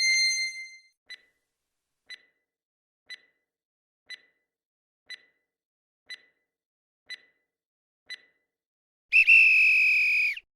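Quiz countdown-timer sound effect: a chime dies away, then soft ticks come once a second, eight in all. About nine seconds in, a loud steady electronic beep sounds for about a second and a half, signalling that time is up.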